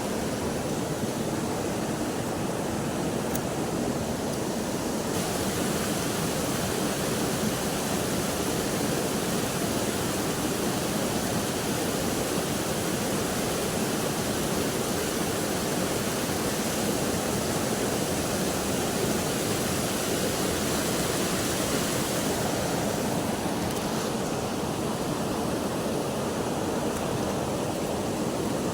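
River water rushing steadily, an even, unbroken noise that gets a little brighter and hissier for much of the time.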